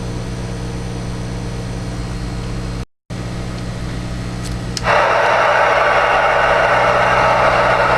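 Uniden PC-78XL CB radio receiving with steady electrical hum underneath. After a brief cut to silence, loud receiver static hiss comes in about five seconds in and holds steady: the squelch is open on an empty channel.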